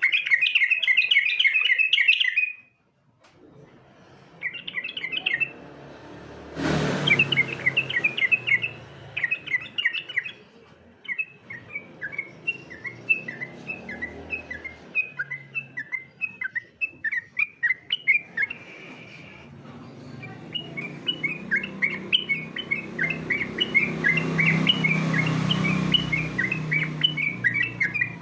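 Yellow-vented bulbul (trucukan) singing in rapid runs of short, bright chirping notes, phrase after phrase with short pauses, as used in a training recording for competition birds. A brief thump comes about six and a half seconds in.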